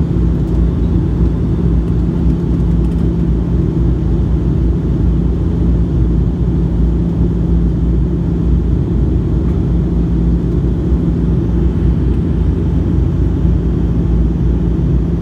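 Cabin noise of a Porter Airlines Dash 8-400 turboprop in flight: a steady low drone with a constant hum through it.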